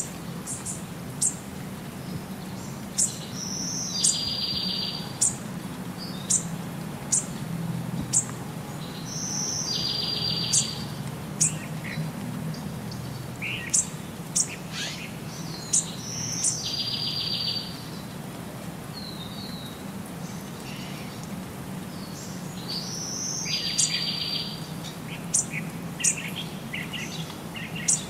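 Small birds chirping: many short, sharp high chirps, and a brief buzzy call repeated four times, about every six to seven seconds, over a steady low hum.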